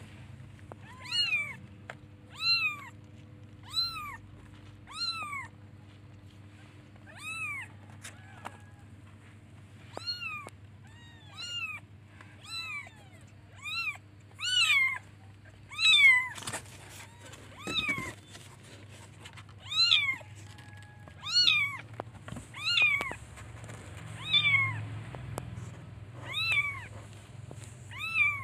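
Young kittens meowing over and over, short high calls that rise and fall in pitch, about one every second: calls for their mother.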